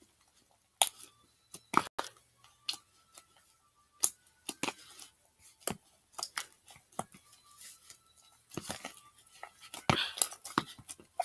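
Hands kneading slime in a plastic bowl: irregular sticky pops, clicks and small tearing snaps as the slime is pressed and pulled apart, with baby powder being worked in to make it doughier.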